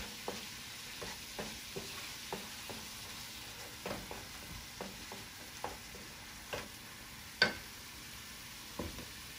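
Fresh tomato sauce frying gently in olive oil in a nonstick frying pan, a soft steady sizzle, while a wooden spatula stirs it, scraping and tapping against the pan at irregular intervals, with one louder knock near the end.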